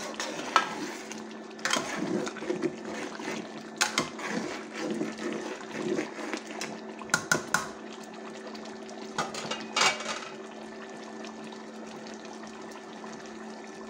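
A spoon stirs thick, bubbling chicken and liver curry in an aluminium pot, knocking and scraping sharply against the pot several times. After about ten seconds the stirring stops and only the simmer and the steady hum of the electric cooktop remain.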